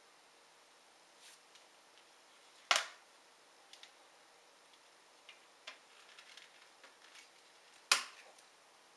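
Two sharp clicks about five seconds apart, the second the louder, with faint light ticks and knocks between them.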